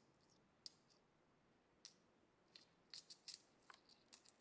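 Metal coins clinking together in a hand: a series of short, sharp clinks, a few single ones and then a quick cluster about three seconds in, the sound of the last coin arriving among the others in a coins-across magic trick.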